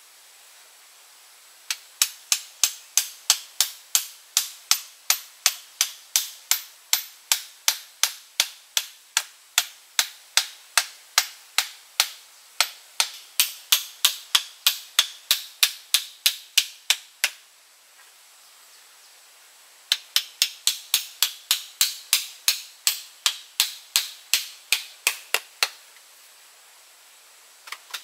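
Sharp knocks struck in a fast, even rhythm, about three a second, in two long runs with a short pause between.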